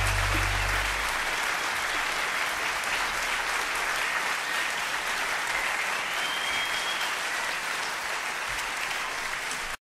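Audience applauding, with the final held chord of the music dying away about a second in. The applause is steady and then cuts off suddenly near the end.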